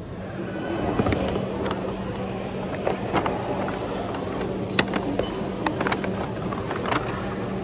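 A paper takeaway bag rustling and plastic food containers clicking and knocking on a table as a meal is unpacked, over a steady background hum.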